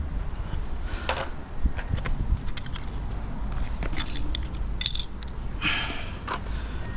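Scattered light clicks and small metallic rattles over a low steady rumble, with a few short hissing bursts, about five seconds in.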